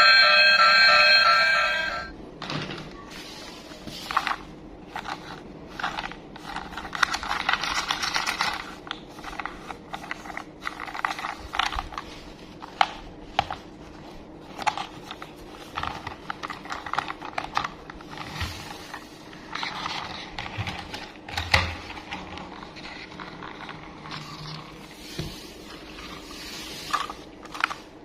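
Music ends about two seconds in. It gives way to scattered small clicks and taps and bursts of rustling, with a longer rustle near the start: hands opening toy packaging and handling the toy.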